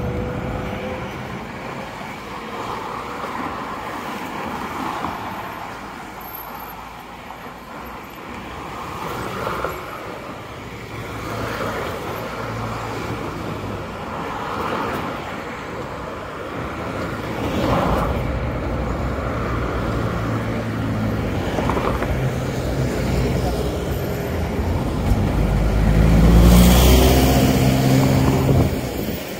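City street traffic: cars going by with people talking. Near the end a motor vehicle passes close, its engine rising in pitch and the loudest sound of the stretch.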